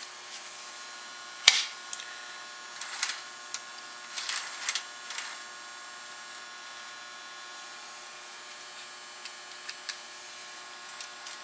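Lionel 497 coaling station running on toy-train transformer power: a steady electric hum, with a sharp click about a second and a half in, then scattered light clicks and rattles of the mechanism.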